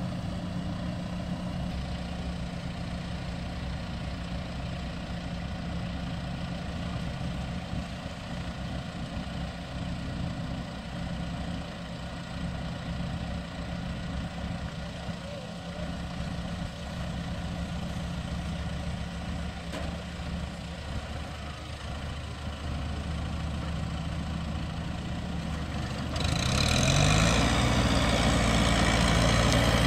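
Diesel farm tractor engine running steadily while it works through a flooded rice paddy. Near the end the engine revs up, rising in pitch and getting clearly louder.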